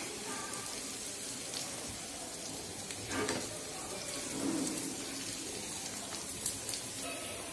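Sliced shallots sizzling steadily in hot coconut oil in a small pan, stirred now and then with a spoon as they fry toward golden brown.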